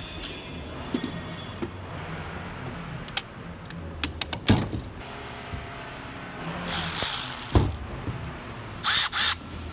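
Metal tool chest drawer sliding on its runners, with clinks and sharp knocks as two cordless ratchets are lifted out and set down on a concrete floor.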